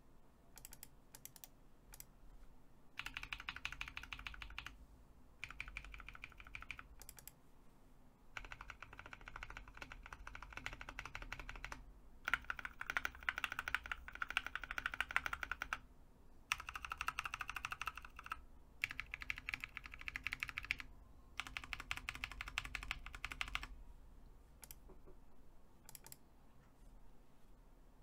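Typing on a Drop ALT mechanical keyboard with lubed, filmed Drop Halo Clear tactile switches and MT3 keycaps, in fast runs of keystrokes broken by short pauses. The spring ping typical of these switches is gone after a swap to 65 g TX springs. There are a few scattered key presses at the start and near the end.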